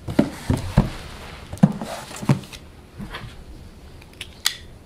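Cardboard shipping box being handled and opened: a run of knocks and scrapes over the first couple of seconds, then quieter rustling and one sharp click near the end.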